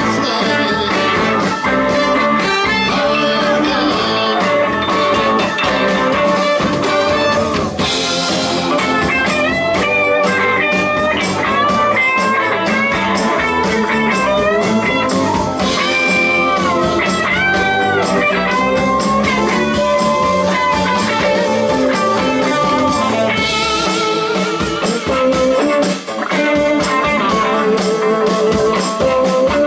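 A live blues band playing, with electric guitar to the fore and notes bending up and down in pitch.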